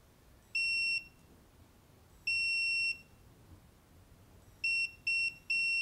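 Electronic beeping from the bench power supply injecting voltage into the iPhone 8 logic board's VDD_MAIN rail: two longer beeps about a second and a half apart, then three short ones in quick succession near the end. The repeated beeping marks a short on VDD_MAIN.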